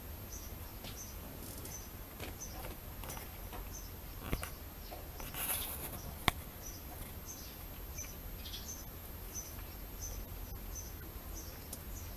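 A small bird chirping over and over, one short high note about twice a second, above a low steady rumble. About five and a half seconds in there is a brief rush of noise, followed by a single sharp click.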